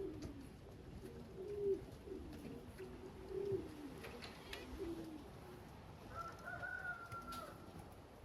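Racing pigeons cooing repeatedly in low, falling notes. A thin, higher steady note sounds for about a second after about six seconds.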